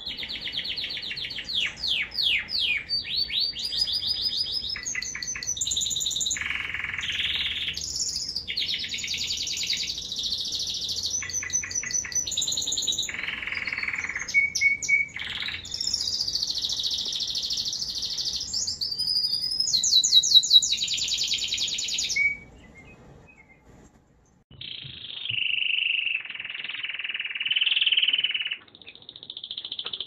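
American Singer canary singing a long, varied song of fast trills, rapid repeated notes and rolling phrases. The song breaks off about three-quarters of the way through, then a shorter phrase of song follows.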